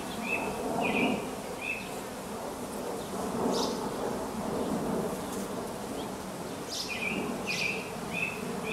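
Steady buzzing of a honeybee colony around an opened hive, with the bees stirred up by the frames being pulled. Short high chirps come in quick runs over the buzz near the start and again near the end.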